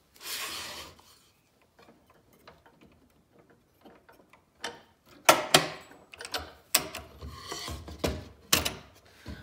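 Scroll saw blade being unclamped and threaded through a drilled pilot hole in plywood, then clamped again with the saw switched off. A short scrape comes near the start, then from about five seconds in a string of sharp metallic clicks and knocks from the blade clamp and throat plate insert.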